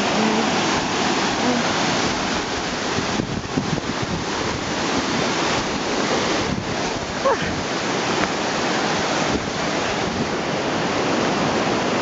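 Whitewater river rushing steadily over granite rapids at the top of a waterfall.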